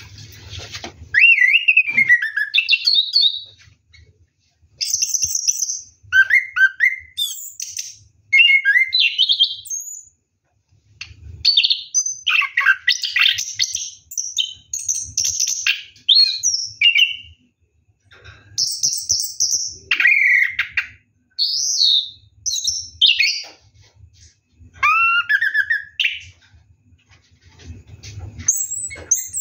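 Orange-headed thrush singing long, varied phrases of rich whistles, glides and warbles, phrase after phrase with short pauses between them.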